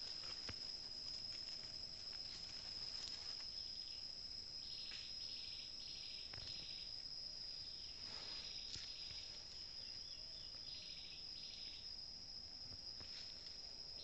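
Forest insects: a steady, high-pitched drone, joined from a few seconds in by short pulsed chirps that come in groups. A few faint snaps are heard among them.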